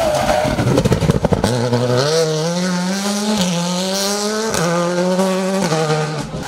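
Škoda Fabia R5 rally car exiting a hairpin. It starts with rapid popping and crackling for about a second and a half, then the engine revs up hard through the gears, with two upshifts about three and four and a half seconds in, and fades away near the end.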